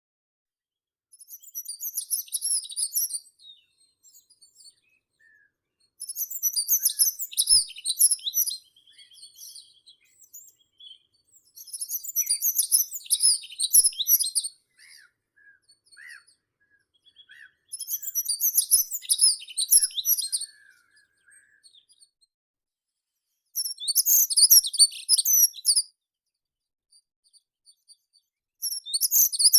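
A meadow songbird singing: six rapid, high-pitched song phrases of about two seconds each, repeated every five to six seconds, with a few soft lower notes between them.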